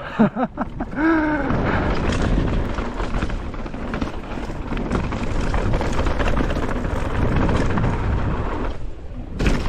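Wind buffeting the microphone and tyres rumbling over a dirt trail while a mountain bike is ridden at speed, as a steady rough noise that drops away near the end. A short shout comes about a second in.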